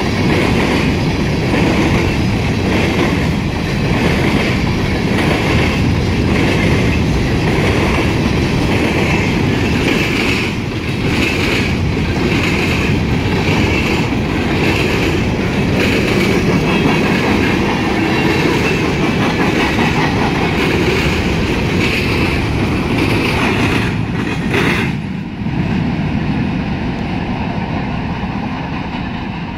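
Freight train of covered hopper cars passing close by, with a steady rumble and repeated clicking of wheels over rail joints. About 25 seconds in the sound drops and then fades as the train moves off.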